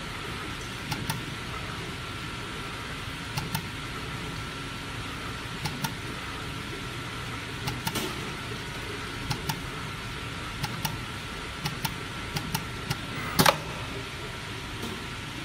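PVC coaster dispensing machine running with a steady hum and a faint constant whine. Short sharp clicks from the pneumatic dispensing heads come every second or two, often in pairs, and there is a louder hiss-like burst near the end.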